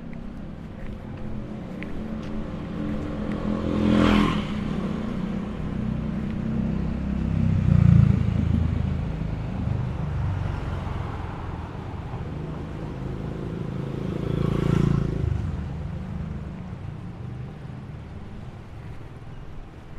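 Street traffic with vehicles passing close by. One goes past about four seconds in, a louder low engine rumble comes about eight seconds in, and another vehicle passes near fifteen seconds, over a steady background of traffic.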